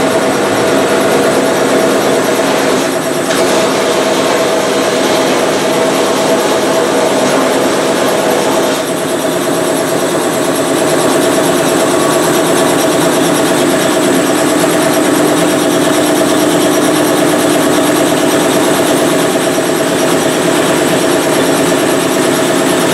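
Vapor blasting cabinet running: a steady loud hiss of compressed air driving wet blasting slurry through the nozzle onto brake caliper brackets and hardware, over a steady machine hum, dipping briefly twice.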